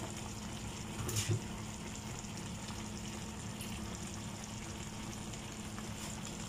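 Chicken adobo (chicken pieces and livers in their marinade) sizzling and simmering in a nonstick pan, a steady hiss with a light knock about a second in.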